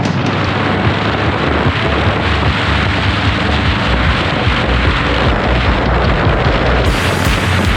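Wind buffeting the camera microphone on a moving motorcycle, over a low, pulsing engine sound. The hiss turns brighter about seven seconds in.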